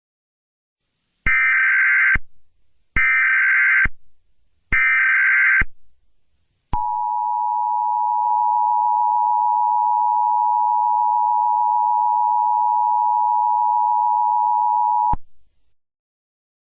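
Emergency Alert System tones: three short bursts of buzzing SAME digital header data, about a second apart, then the EAS two-tone attention signal held steady for about eight seconds before cutting off sharply.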